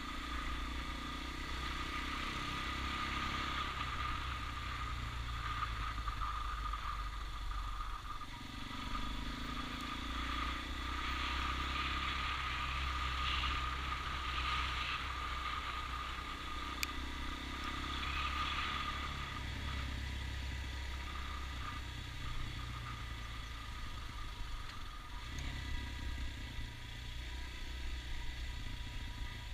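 Motorcycle engine running steadily under way, with road and wind noise. The engine note shifts now and then as the speed changes.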